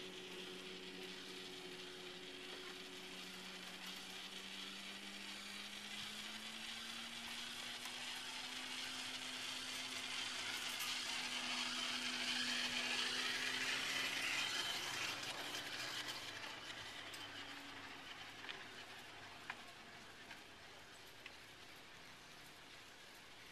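Chairlift haul rope running over a tower's sheave wheels: a whirring hum with a low tone that slowly rises, swelling as the chair passes the tower about halfway through, then fading, with a few faint clicks near the end.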